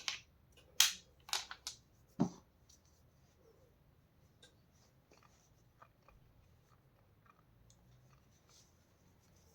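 Sharp clicks and knocks of the hard plastic parts of a Vax Mach Air upright vacuum being handled and pushed together, a handful in the first two seconds or so with the loudest about a second in, then only faint light ticks.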